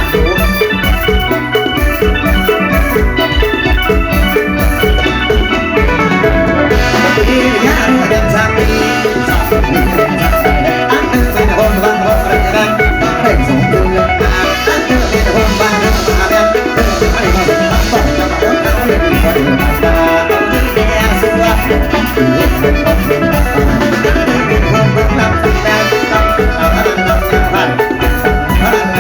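Isan-style live band music with a steady drum-kit beat under a bright, ringing melody line, playing without a break.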